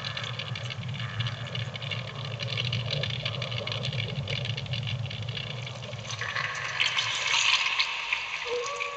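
Spooky Halloween projection soundtrack playing through a speaker: a steady low rumble under layered eerie tones, swelling about seven seconds in. Just before the end a howl rises and then holds on one note.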